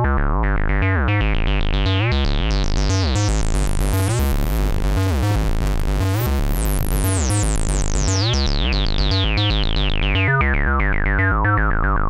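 Roland analogue synthesizer playing an acid bassline: a fast repeating sequence of short, squelchy bass notes. The filter slowly opens so the line grows brighter toward the middle, then closes again so it turns duller near the end.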